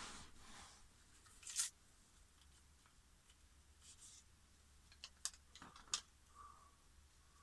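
A small first-aid packet being torn open and handled: faint paper rustling with a few short, sharp crinkles, the loudest about one and a half seconds in and a couple more near six seconds.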